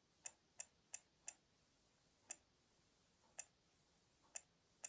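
Faint, sharp taps at uneven intervals: about four in quick succession, then four more spread out, as a touchscreen's menus are tapped through.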